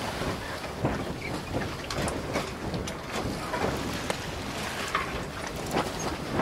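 Wind noise on the microphone over water sloshing and lapping, with scattered small knocks and clicks.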